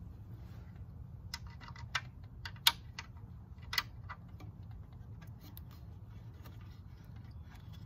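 Light, sharp clicks and taps of small hardware and fingers against a teak chair frame as fittings are worked by hand: a cluster in the first four seconds, the loudest about two and a half and nearly four seconds in, then only scattered faint ticks, over a low steady rumble.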